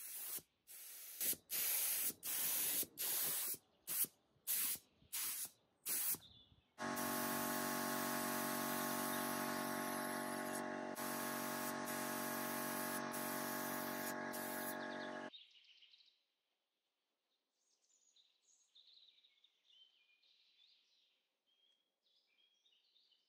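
Spray gun spraying walnut wood stain: a string of short hissing bursts, then one continuous spray of about eight seconds with a steady motor hum under the hiss, cutting off suddenly. Faint bird chirps follow.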